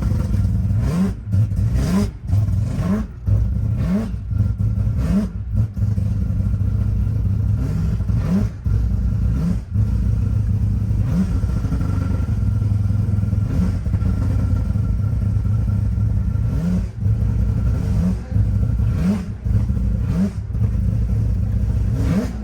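Car engine revved hard again and again over a steady loud rumble: its pitch climbs sharply about once a second, with a short drop in loudness between each rise.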